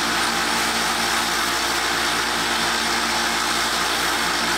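Harbor Freight 1x30 belt sander running steadily with a 240-grit belt, a steel broadhead held against the belt to grind its back side.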